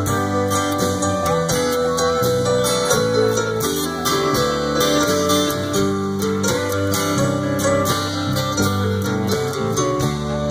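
Live band playing an instrumental break: strummed acoustic guitar, drums, bass and keyboard, with a harmonica played into a microphone over the top.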